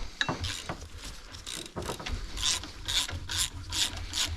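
Hand ratchet wrench clicking in quick back-and-forth strokes, about two to three a second, as a bolt is loosened to take tension off the drive belt of a 3.0 MerCruiser engine.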